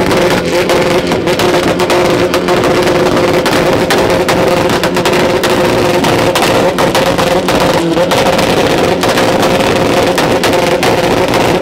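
Loud car-show din: car engines running with a rapid, continuous crackle of exhaust pops, over music.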